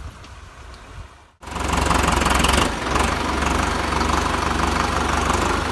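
Sonalika DI 60 tractor's diesel engine running steadily, cutting in suddenly about a second and a half in after a quiet start.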